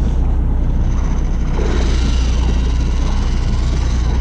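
Fishing boat's engine running with a steady low drone, mixed with wind and water noise.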